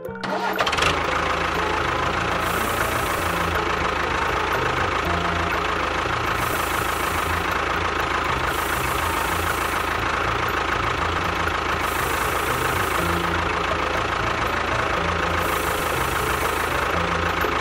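A miniature tractor's engine running steadily, starting just under a second in, with a high hiss that swells and fades every few seconds.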